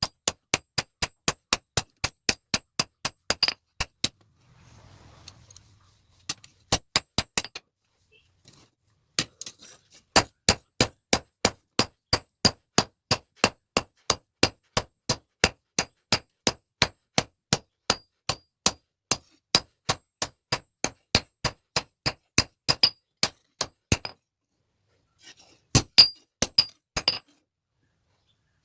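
Blacksmith's hammer striking metal on an anvil in quick, even blows, about three a second, each with a bright metallic ring. The hammering stops briefly a few times and then resumes.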